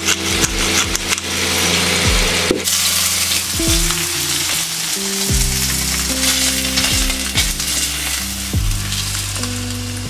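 Salmon steaks sizzling in hot oil in a nonstick frying pan, a dense steady crackle, over background music with a steady bass line.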